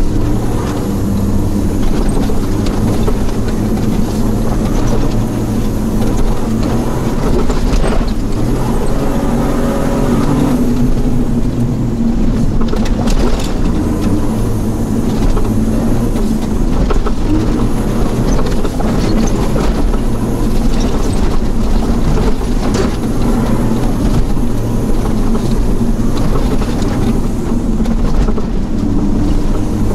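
Toyota Land Cruiser 80-series engine running and tyre and road noise heard from inside the cabin while driving a rough dirt road, the engine note stepping up and down as the speed changes. Short knocks and rattles from the body and cabin fittings come through now and then as the truck goes over bumps.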